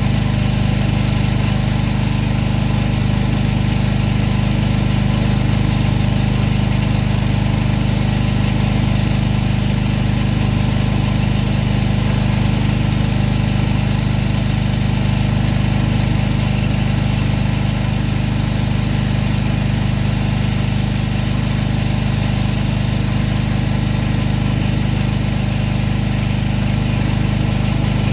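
Gas engine of a pressure washer running at a steady speed, a constant drone with a hiss over it.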